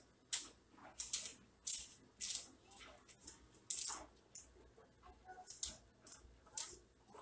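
Parchment paper lining a baking pan rustling and crinkling in a series of short, irregular bursts while soft cream cheese is spread over it.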